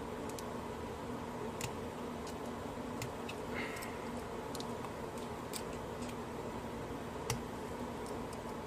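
Sparse, sharp little metal clicks and ticks of a padlock's lock core and its retaining clip being worked with tools, over a steady background hum.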